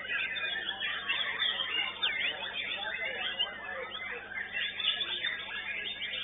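Many white-rumped shamas (murai batu) singing at once from their cages, a dense overlapping tangle of quick whistled and chattering phrases with no pause.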